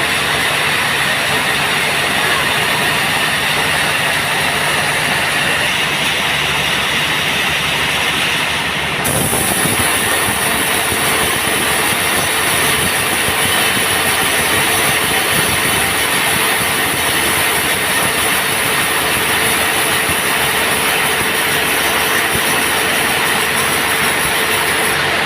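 Band sawmill running, its blade cutting through teak timber with a loud, steady mechanical noise; the sound changes abruptly about nine seconds in.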